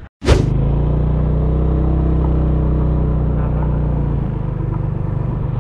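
Motorcycle engine running at a steady speed as the bike is ridden, heard from on the bike. It cuts in abruptly a moment in and eases off slightly about four seconds in.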